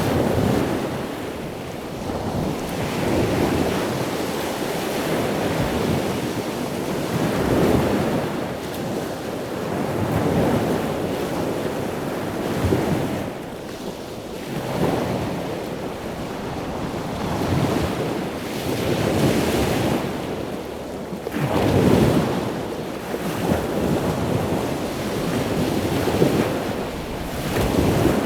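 Ocean waves breaking and washing up a beach. The surf swells and falls back every few seconds.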